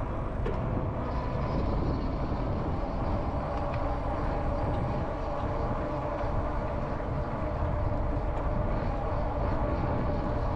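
Wind rushing over a GoPro riding on a moving e-bike, with rolling noise and a faint steady hum of a few tones underneath.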